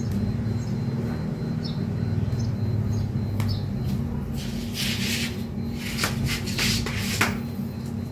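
A steady low hum, with a run of rustling and scraping noises about five to seven seconds in.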